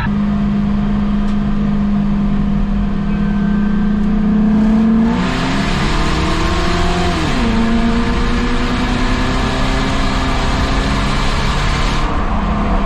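Race car engine running under steady throttle. Its pitch climbs about five seconds in, drops sharply a couple of seconds later as the throttle comes off, then settles steady again. A louder rushing noise runs over the middle of the stretch and cuts off near the end.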